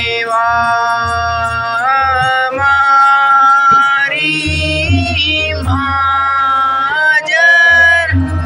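A Hindu devotional aarti hymn sung in long, held notes that bend at each change of pitch, over a low accompaniment that comes and goes.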